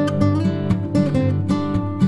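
Background music led by strummed acoustic guitar, with plucked notes and a steady bass.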